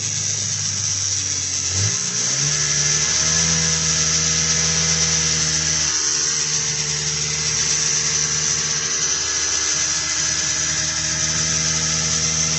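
A vintage snowmobile's two-stroke engine running steadily at the start line. About two seconds in its pitch rises and then holds at a higher, even buzz.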